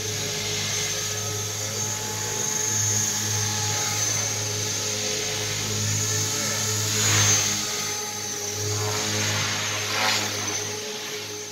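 Radio-controlled model helicopter in flight, its rotors and motor giving a steady high whine, with two louder rushing swells about seven and ten seconds in.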